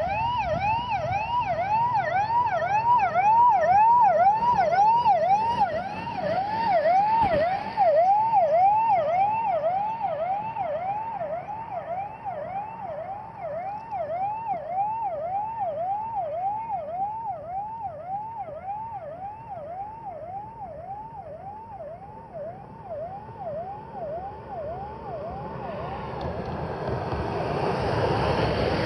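Electronic vehicle siren in a fast yelp, about two pitch sweeps a second, loudest in the first few seconds and slowly fading. Near the end an SUV in the motorcade passes close, its engine and tyres rising in a rush of noise.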